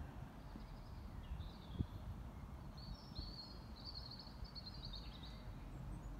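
Outdoor background: a steady low rumble with birds singing in the trees, a longer warbling phrase from about three to five seconds in, and a single soft thump just under two seconds in.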